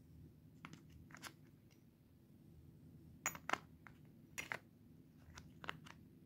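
Scattered light clicks and knocks of a small hard plastic choke-tube case and its steel choke tubes and choke wrench being handled, the sharpest pair a little past halfway, over a faint low hum.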